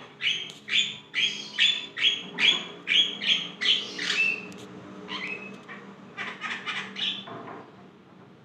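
Javan myna (jalak kebo) calling in full voice: about ten loud, repeated notes at roughly two a second over the first four seconds, then softer, quicker runs of chattering notes.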